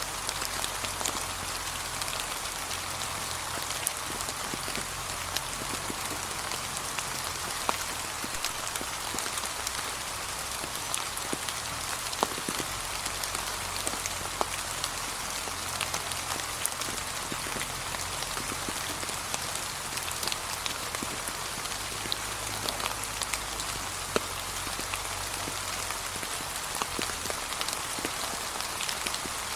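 Gentle, steady rain falling on fallen leaves, with individual drops ticking out distinctly over a constant hiss.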